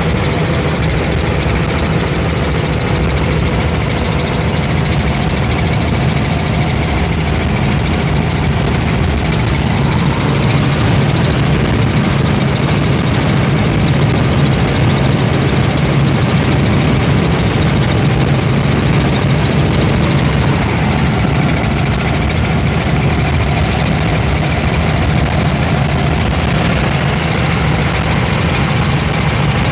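Steady in-flight cabin noise of a Robinson R44 Raven I helicopter, its six-cylinder Lycoming piston engine and rotor running evenly, heard from inside the cockpit as a constant low hum under a high hiss.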